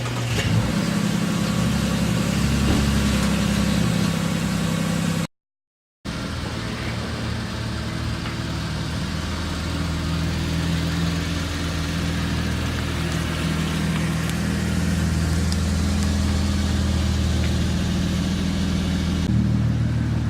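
Car engine running steadily. The sound breaks off completely for under a second about five seconds in, then the engine sound resumes.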